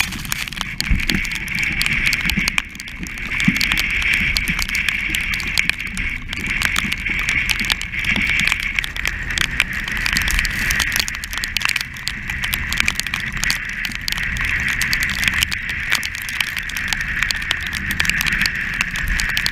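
Strong wind across a sailing yacht's deck in heavy weather: a steady high whistle over a low buffeting rumble. Dense irregular crackling and flapping come from the loose, half-lowered sail and from spray.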